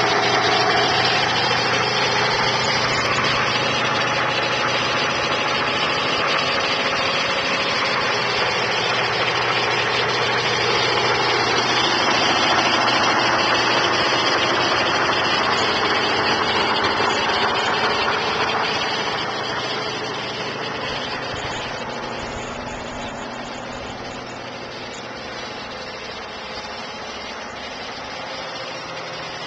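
An engine running steadily at constant speed, with an even hum and hiss. It gets quieter after about 19 seconds.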